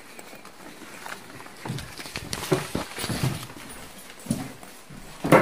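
Irregular footsteps and knocks on a hard floor as people walk indoors, with one sharper, louder knock near the end.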